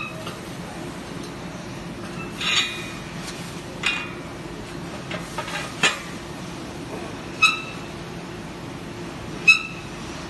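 Steel striking steel: about six sharp metallic clinks, a second or two apart, each ringing briefly. This fits work on welded steel shear studs during a bend test.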